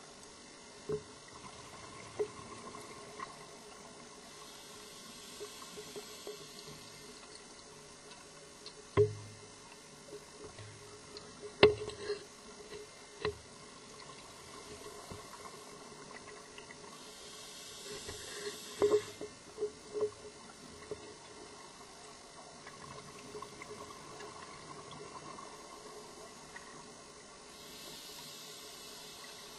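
Underwater audio of a scuba diver: three long hisses of exhaled bubbles from the regulator, about ten seconds apart, with scattered sharp knocks and clicks of gear or the camera housing, the loudest two a little before the middle.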